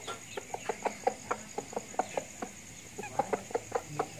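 Chicken clucking: a quick run of short, sharp clucks, about four or five a second, with a brief pause midway.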